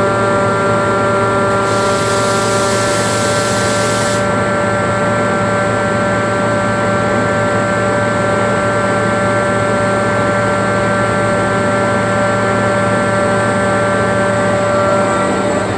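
Airking rotary screw air compressor running steadily with a constant whine. About two seconds in, a high hiss starts abruptly, lasts about two seconds and cuts off.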